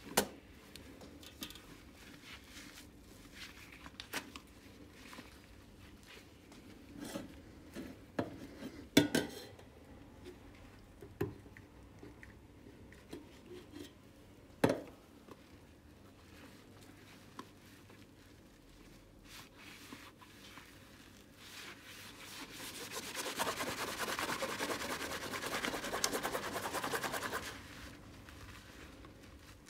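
Rubber-gloved hands handling soapy dish sponges in a stainless steel sink: scattered soft handling sounds with several sharp clicks and knocks in the first half. Later comes about five seconds of quick, steady rubbing as a lathered mesh scrubber is worked between the gloved hands.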